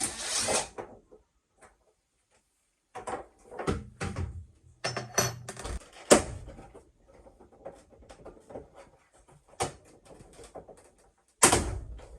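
Irregular knocks, clicks and rattling of parts being handled while a washing machine is taken apart, with loud bursts at the start and about a second before the end and a run of clattering in the middle.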